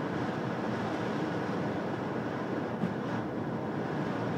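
Steady rush of air and engine noise on the flight deck of a Boeing 747-400F in descent on approach, with a faint click about three seconds in.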